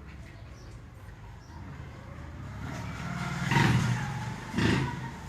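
A motor vehicle engine in the lane, its steady hum growing louder over a couple of seconds, loudest about three and a half seconds in, with a second surge near the end.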